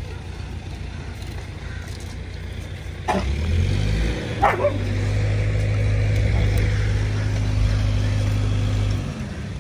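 A motor vehicle's engine running, picking up revs a little after three seconds in and holding a higher steady note until it drops back near the end. A dog barks twice, about three and four and a half seconds in.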